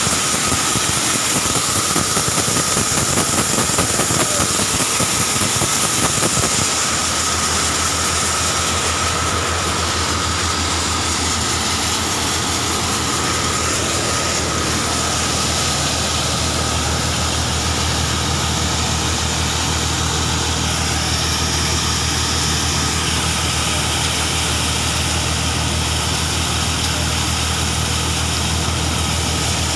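Sonalika tokari thresher running steadily while it threshes chickpea plants, a loud mechanical drone with a thin high whine. About six and a half seconds in the sound settles from a fluttering, slightly louder run into a steadier drone with a low hum.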